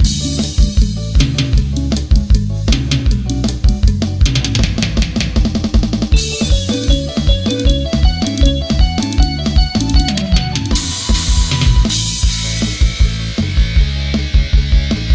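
Instrumental karaoke backing track of a Thai pop song: a drum kit with bass drum and snare keeping a steady, busy beat under bass and guitar, with a stepping melody line in the middle of the passage.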